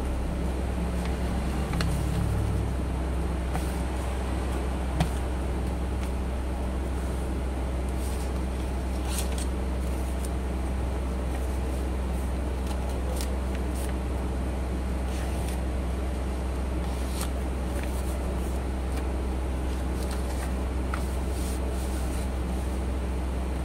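A steady low hum runs under faint, scattered crinkles and soft creasing of a sheet of paper being folded by hand, with one sharper tap about five seconds in.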